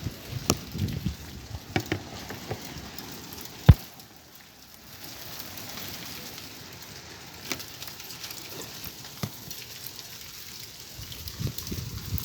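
Hailstones striking hard surfaces: irregular sharp clicks and knocks over a steady hiss of falling rain and hail, with one much louder hit almost four seconds in.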